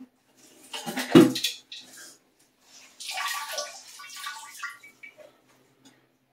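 Water splashing and dripping in an emptied toilet tank as the leftover water is mopped out with a rag, with a knock about a second in.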